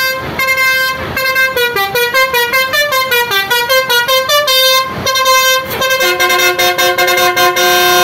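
Tour bus telolet musical air horn (basuri-type multi-tone horn) playing a fast tune of short notes stepping up and down in pitch, then holding a sustained chord of several notes for the last two seconds before cutting off.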